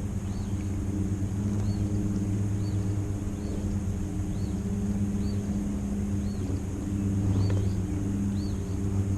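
Boat engine running steadily at low revs, with a short high chirp repeating about once a second over it.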